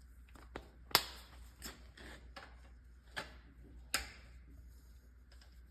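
A few sharp, irregular clicks and knocks of hand tools working the bolts on a gearbox. The loudest is about a second in, with others about three and four seconds in.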